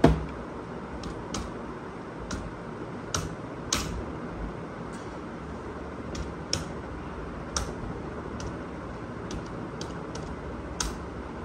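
Scattered single clicks of keys being pressed on a computer keyboard, irregular and about one or two a second, over steady room noise.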